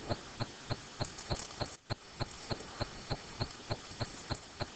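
Even, regular ticking, about three ticks a second, over faint background hiss.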